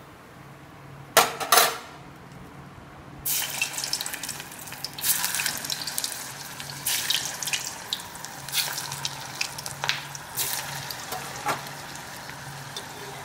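Two sharp metal clinks a little over a second in, then, from about three seconds, lauki koftas sizzling and crackling as they deep-fry in hot oil in an aluminium kadai.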